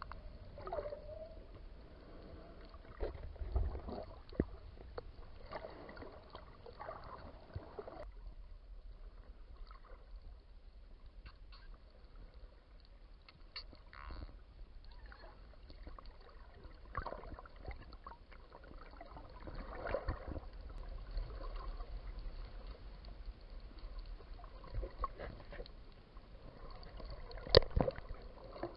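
Underwater sound around snorkellers with bottlenose-type dolphins: scattered sharp clicks over a low water rumble, with a short whistle about a second in and one loud click near the end.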